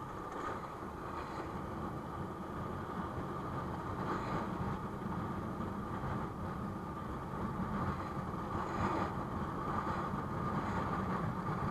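Motorcycle riding along a road, heard from the rider's own camera: steady engine and road noise.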